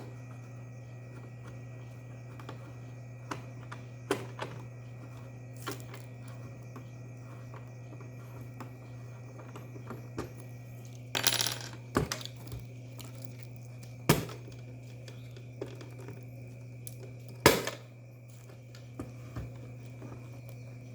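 Small clicks, taps and knocks of a fibre-optic PLC splitter cassette and its packaging being handled, scattered and irregular, with a short flurry about eleven seconds in and louder single knocks around fourteen and seventeen seconds. A steady low electrical hum runs underneath.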